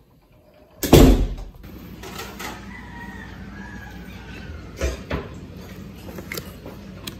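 A loud knock about a second in, then hands rustling and tapping cardboard lantern boxes, with two sharp taps about five seconds in.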